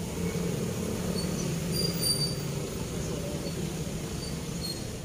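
Steady low rumble of road traffic crossing the concrete bridge overhead, with a few short high-pitched squeaks about a second in and again near the end.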